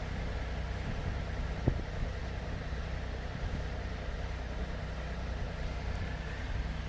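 An engine idling steadily with an even low drone, and a single sharp knock a little under two seconds in.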